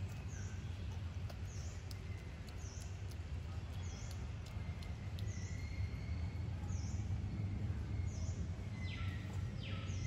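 Outdoor forest ambience: a steady low rumble under a short, high bird chirp repeated at an even pace, about once a second. Two brief rasping sounds come near the end.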